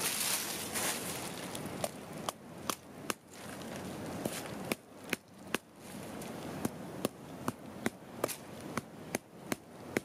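Hatchet hammering a sharpened wooden stake into the ground to peg out a tarp shelter: a series of sharp wooden knocks in short runs of about two to three a second, over rustling of dry leaves, loudest in the first second.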